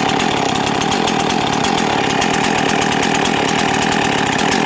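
Husqvarna 51 two-stroke chainsaw idling steadily at an even speed, the saw sitting on concrete and vibrating on it.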